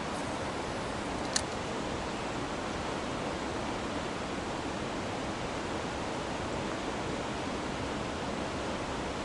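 Steady rush of river water running over a shallow riffle into a pool, with one sharp click about a second and a half in.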